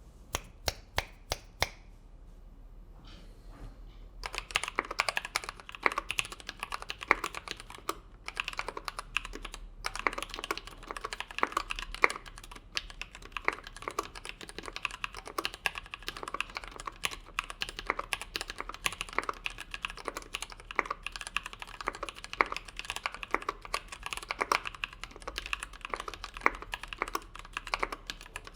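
Typing on a mechanical keyboard with a Tofu 60% aluminium case, brass plate, lubed NovelKeys Cream linear switches and PBT keycaps. A handful of single keystrokes, a brief pause, then from about four seconds in, steady fast typing.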